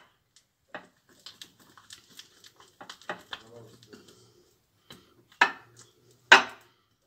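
A wooden spoon stirring a thick paste of honey, turmeric and ground cardamom in a glass bowl: scattered taps and scrapes of the spoon against the glass, with two louder knocks in the second half.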